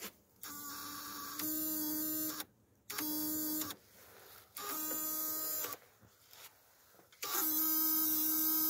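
Electrical buzz from the BAW truck's starting system, sounding four times in separate bursts of about a second each as the key is turned, the last the longest. The owner says such a sound usually means a flat battery.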